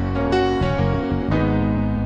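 Slow, soft piano background music, with a new chord struck about once a second.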